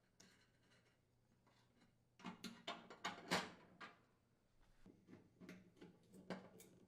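Faint clicks and light knocks of gas range burner parts and screws being handled on the cooktop. A cluster comes about two seconds in, then lighter scattered clicks follow.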